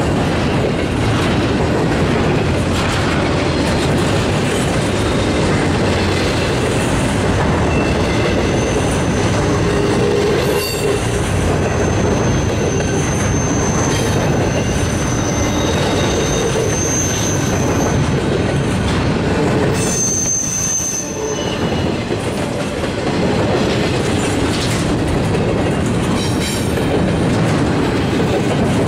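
Empty intermodal well cars of a freight train rolling past: a steady rumble and clatter of steel wheels on rail. High-pitched wheel squeals come in now and then, the longest from about twelve to seventeen seconds in and a sharp, brief one around twenty seconds.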